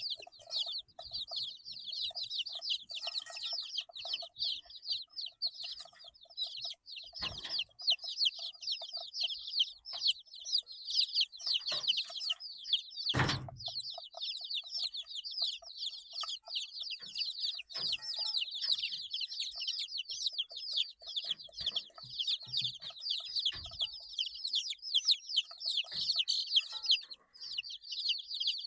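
A brood of 8-day-old chicks peeping continuously, many short high chirps overlapping without a break. A few soft knocks sound among them, with one louder thump about thirteen seconds in.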